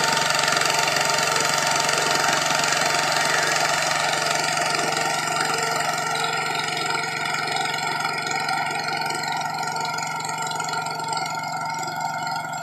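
Modified garden pulling tractor's engine running steadily under load as it drags a weight-transfer sled down the track, its sound gradually fading.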